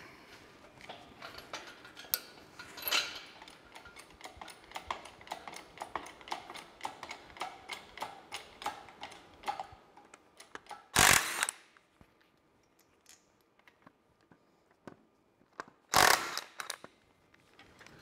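Ratchet wrench clicking in quick irregular runs while loosening the nuts that hold the final drive housing to an Allis-Chalmers D17 tractor. Later come two loud bursts of noise, each about half a second long and five seconds apart.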